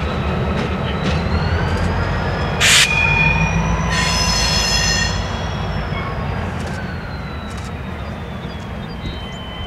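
Freight train cars rolling past with a steady low rumble and high-pitched wheel squeal that slides slowly up and down in pitch. There is a sharp clank about two and a half seconds in and a louder, shriller squeal a second later, then the sound gradually fades.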